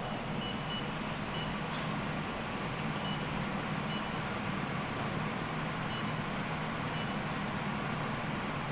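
Packaging machinery running steadily, a constant mechanical noise with a low hum and a few short, faint high beeps at uneven intervals.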